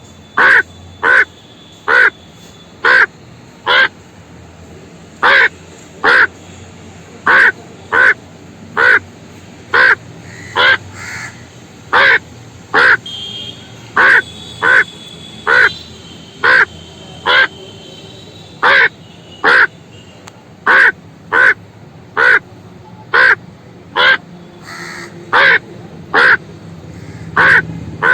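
A crow cawing: a long series of harsh caws at about one a second, in runs of several with short pauses between them.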